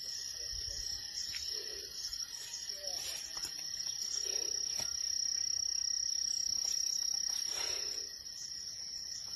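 A chorus of insects trilling at one steady high pitch, a little louder through the middle.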